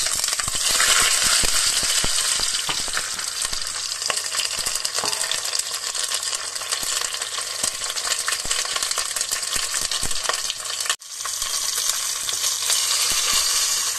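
Stuffed bell peppers searing in hot melted pork lard in a stainless steel pot: a dense, steady sizzle, with many small crackles and light knocks as they are turned. The sound drops out for an instant about eleven seconds in.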